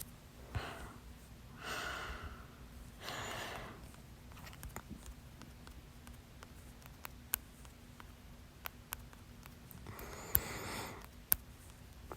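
A person breathing audibly during a long bout of hiccups, with no hiccup in this stretch. There are three soft breaths in the first four seconds and another about ten seconds in, and a few faint clicks in between.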